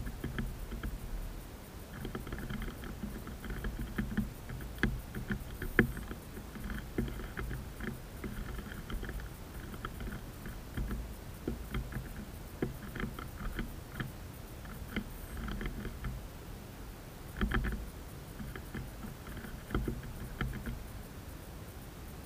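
Great tit pecking at seed in a wooden feeder tray: irregular sharp taps and clicks, several dozen, a few louder knocks among them, over a low background rumble.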